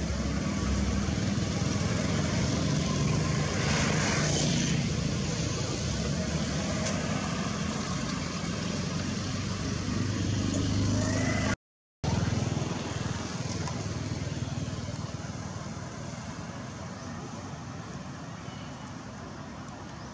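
Steady outdoor background noise with a low motor-like hum, such as a nearby vehicle running. It cuts out completely for a moment about twelve seconds in, then comes back quieter and slowly fades.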